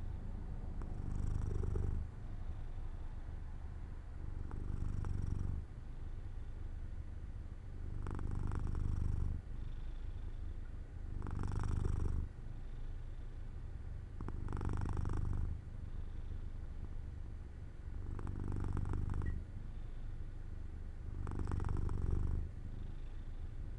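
Domestic cat purring as it dozes, a steady low buzz that swells and eases with each breath, about every three seconds.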